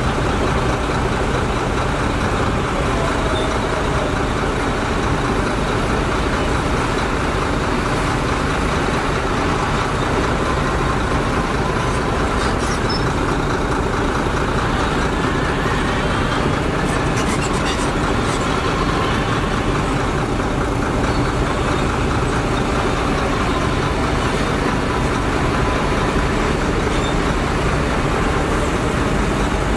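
Bulldozer's heavy diesel engine running steadily under load, with a faint whine that rises and falls in pitch midway.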